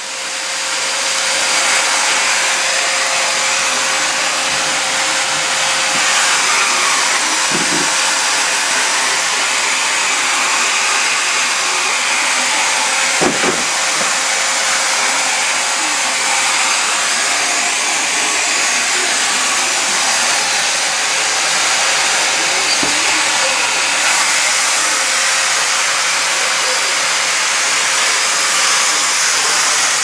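Vacuum cleaner switched on and running steadily, a loud whooshing with a constant hum under it, reaching full speed about a second in. A few brief knocks come through, about 8, 13 and 23 seconds in.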